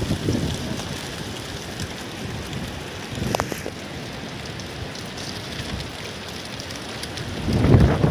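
Strong storm wind driving sand and debris across open ground with a steady hiss, gusting hard against the microphone with a loud low rumble near the end.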